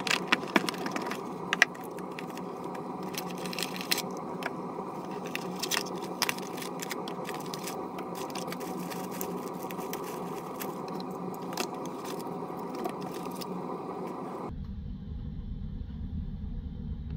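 Unboxing handling: a cardboard box lid and inserts lifted out and small accessories set down on a table, giving scattered clicks, taps and rustles over a steady background hum. The hum stops about two and a half seconds before the end, leaving a quieter background.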